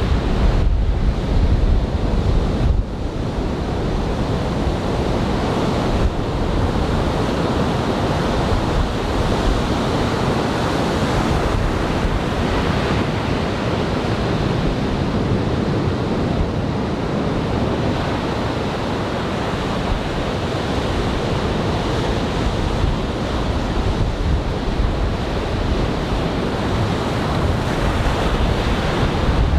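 Typhoon-swell surf breaking and washing on a sand beach, a steady rush, with wind buffeting the microphone, heaviest in the first three seconds.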